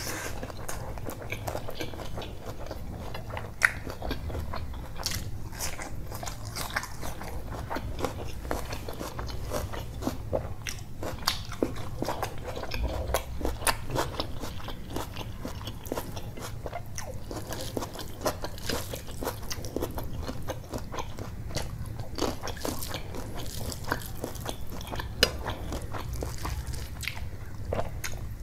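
Close-miked eating: a person chewing mouthfuls of rice and curry eaten by hand, a dense run of wet mouth clicks with a couple of sharper clicks standing out. A low steady hum runs underneath.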